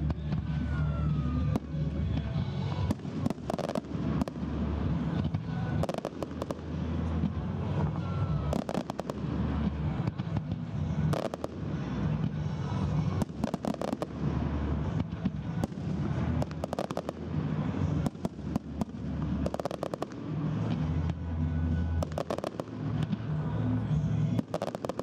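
Aerial firework shells bursting one after another, with many sharp bangs and crackles over a continuous low rumble.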